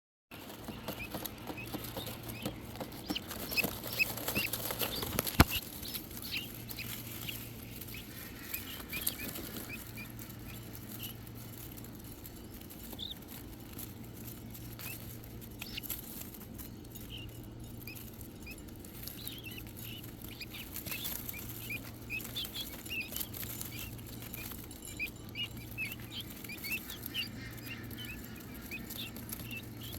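Andalusian guinea fowl keets peeping, many short high chirps scattered throughout, over a steady low hum. There is one sharp click about five seconds in.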